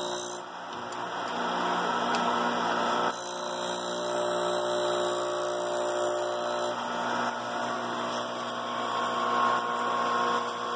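Surface grinder's abrasive wheel grinding a high-carbon steel blank, a steady gritty hiss over the steady tones of the machine's three-phase motor, run from a frequency converter. The level dips briefly about half a second in.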